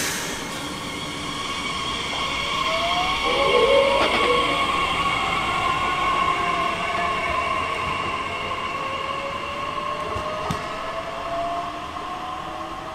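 Electric train running past with a steady whine and traction tones that rise slowly in pitch as it accelerates. Two brief clicks from the running gear come about four and ten seconds in.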